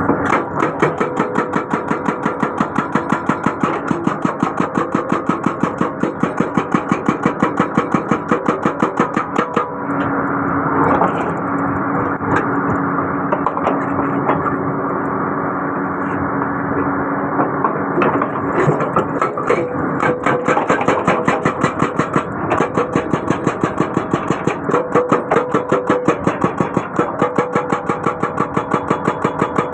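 Excavator-mounted hydraulic breaker hammering rapidly, several metallic blows a second, over the excavator's running engine. The hammering stops for short spells about a third of the way in and again past the middle, leaving the engine alone.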